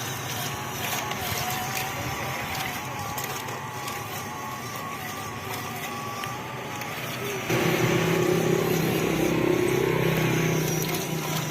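Small electric motor and gear train of a homemade 1/16-scale 4x4 RC truck whining as it drives, the pitch wavering with the throttle. About seven and a half seconds in it turns suddenly louder, with a steadier, lower whine.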